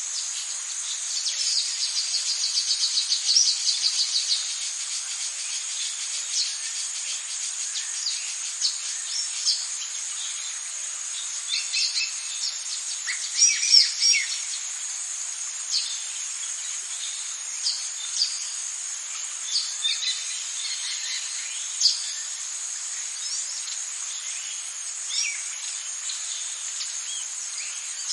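Tropical rainforest ambience: a steady high-pitched insect drone with scattered bird calls and chirps. A fast trill starts about a second in and lasts a few seconds, and a pair of louder calls comes about halfway through.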